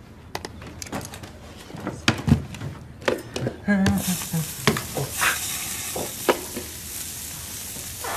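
Laptop keys clicking, then from about four seconds in a steady sizzle like food frying on a grill, with clicks of metal tongs and a spatula over it.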